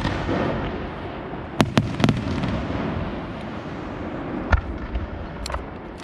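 Aerial firework shells bursting: two sharp bangs in quick succession near two seconds in, then single bangs later on, over a continuous rumble and crackle of further bursts echoing.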